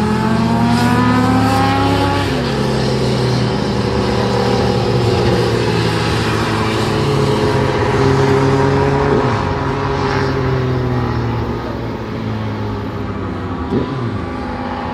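Sport motorcycle engine at speed on a race track. It revs up and drops in pitch at a gear change about two seconds in, climbs again, and shifts once more around nine seconds in. The sound eases a little toward the end.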